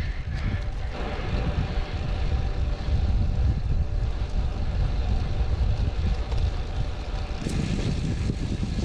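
Wind rumbling on the microphone of a road bike climbing into a headwind: a steady low noise.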